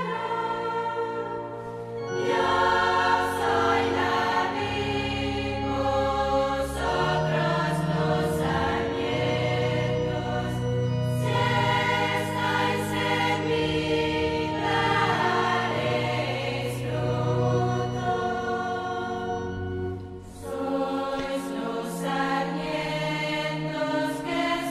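Choir singing a sacred hymn in held, sustained notes, breaking off briefly between phrases about twenty seconds in.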